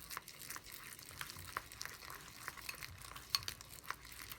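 A stiff mix of glue and instant snow stirred in a bowl with a mixing tool, making irregular small clicks and crackles. The instant snow is what makes it stiff.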